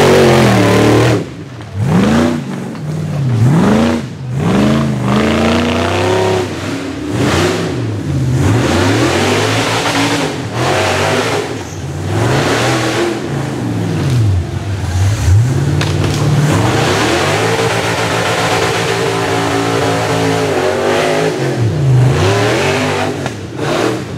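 Rock bouncer buggy's newly supercharged 6.0-litre V8 revving hard in repeated bursts, its pitch rising and falling again and again as the throttle is stabbed and released on the climb, with a longer held high-rev run past the middle.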